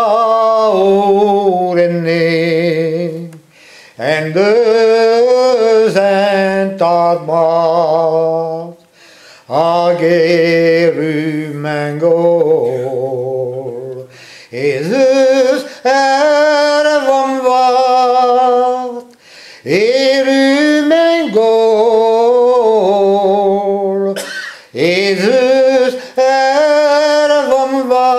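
A man singing a Breton song unaccompanied, in long held phrases with a slight waver in the voice and a short breath between each phrase.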